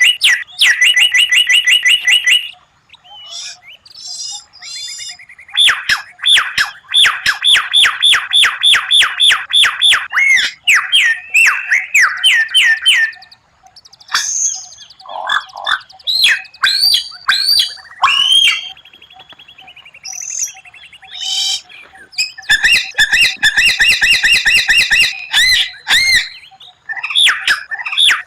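White-rumped shama (murai batu) singing: loud, varied phrases of whistles and pitch glides, and fast runs of identical repeated notes (tembakan), with brief pauses between phrases.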